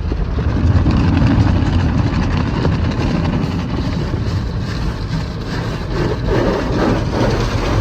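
Automatic car wash dryer blowers running at the end of the wash, heard from inside the car: a loud, steady rushing noise over a low rumble.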